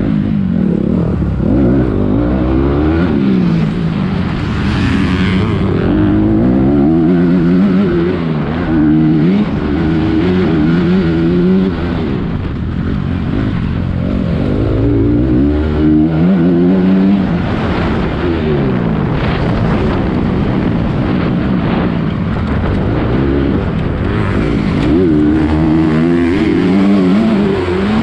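Motocross bike engine heard from on board during a race, revving up and dropping back over and over as the rider accelerates and shifts through the gears.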